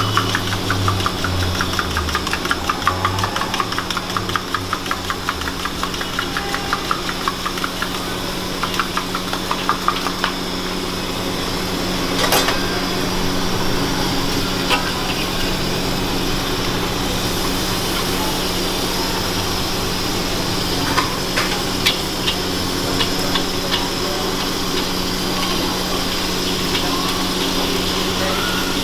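Egg batter deep-frying in a wok of hot oil, a dense crackling sizzle, with a few sharp clinks of a metal spatula against the wok, one about twelve seconds in and a cluster later on. A steady low hum runs underneath.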